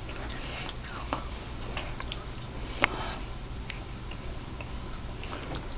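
A paper hall pass being chewed: faint crinkling with a few scattered small clicks, the sharpest about three seconds in, over low room hum.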